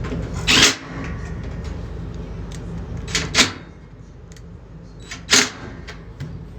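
Three sharp clanks as washer parts are handled while the replacement drain pump is fitted back in, over a steady low hum that drops in level about three and a half seconds in.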